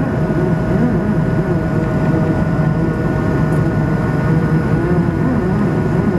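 Steady cabin noise of an Airbus A220-300 (Bombardier CS300) climbing after takeoff: the low rumble and rushing airflow of its Pratt & Whitney PW1500G geared turbofans, with a couple of thin steady tones over it.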